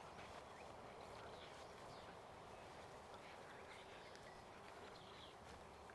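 Faint outdoor ambience: a steady low hiss with a few scattered, distant bird chirps.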